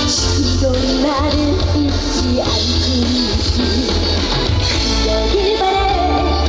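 Loud instrumental passage of a trot song: backing music with a heavy, steady bass and a melody line moving over it, with no lyrics sung.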